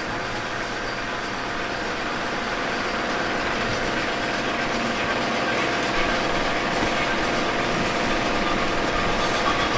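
Steady mechanical running noise with a few faint held tones, slowly growing louder.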